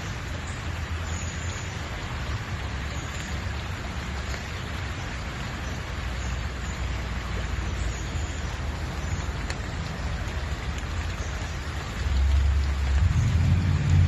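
Muddy, high-running creek rushing past: a steady hiss of flowing water, with a low rumble that grows louder near the end.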